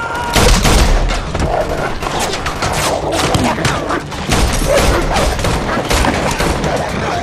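Gunfire in a film action scene: shot after shot, about two or three a second, with heavy low thuds under them.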